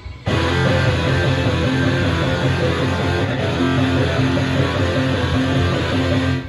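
Guitar intro of a rock song, starting abruptly a moment in and playing a steady repeating figure.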